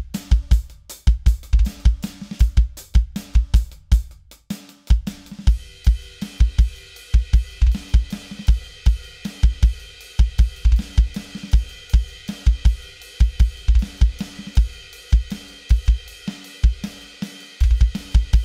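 Drum kit played fast, the kick drum triggered through a Roland KD-A22 kick trigger in a 22-inch bass drum shell, with snare, hi-hat and cymbals. The kicks come in rapid runs of several strokes a second, and a steady cymbal wash joins about five seconds in.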